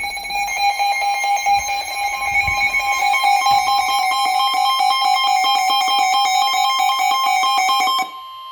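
Several weather alert radios sounding their tornado warning alarms at once: a steady tone joined about a second in by a second, higher steady tone, over a fast pulsing. The lower tone cuts off near the end while the higher one carries on.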